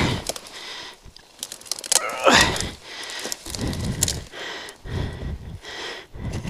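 A man breathing hard from exertion close to the microphone, about one breath a second, with a straining gasp about two seconds in. Twigs snap and brush rustles as he pushes through the undergrowth.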